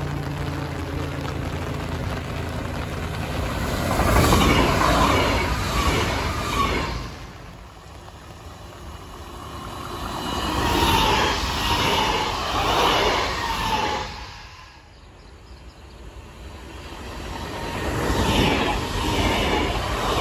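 TER 2N NG double-deck electric multiple unit approaching and passing at speed, its wheels rumbling on the rails. The sound swells and falls back three times as the train comes closer.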